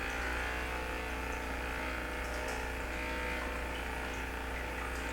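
Electric heated massage device running with a steady motor hum while it massages the shoulder and shoulder-blade muscles.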